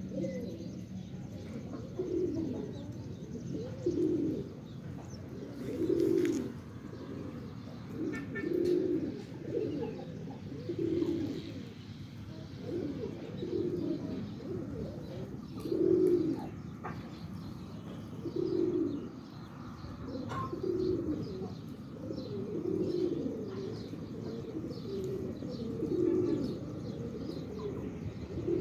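Pigeons cooing over and over, a low call every second or two, with faint high chirping of small birds behind.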